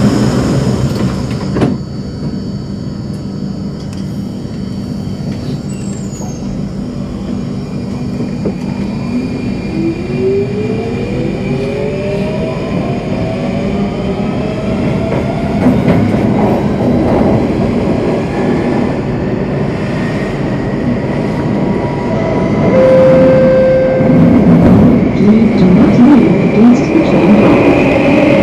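Singapore MRT train heard from inside the carriage: the doors knock shut about two seconds in, then the train pulls away and its traction motors give a whine that climbs steadily in pitch as it gathers speed. The running rumble grows louder near the end as the train runs into the tunnel.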